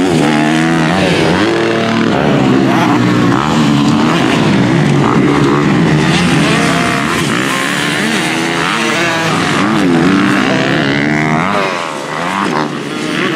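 Several motocross bikes' engines racing around the track, their overlapping notes rising and falling as the riders open and close the throttle. The sound eases briefly near the end.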